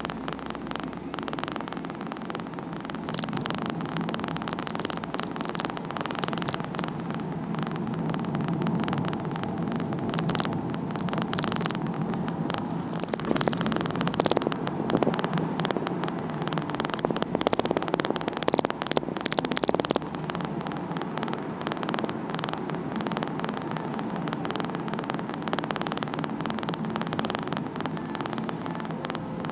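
Steady road, engine and wind noise inside a convertible driving with its roof open, a low rumbling hum that grows louder and rougher for several seconds about halfway through.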